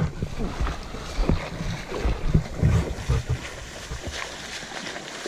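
River water splashing and sloshing from a man's swimming strokes beside the boat. Irregular low thumps run through the first three seconds or so, then it goes quieter.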